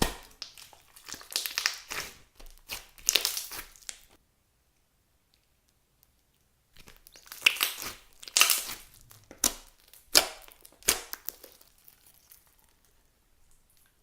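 Crunchy clear slime with floam beads mixed in, squeezed and worked by hand, crackling and crunching in bursts. A pause comes about four seconds in, the crunching starts again a few seconds later, then fades out.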